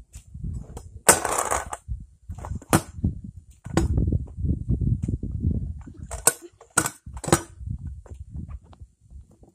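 Stunt scooter rolling over concrete, with a loud scrape about a second in and several sharp clacks as the deck and wheels strike the ground and ledge during tricks.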